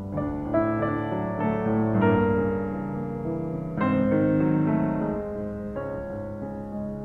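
Background piano music with sustained chords.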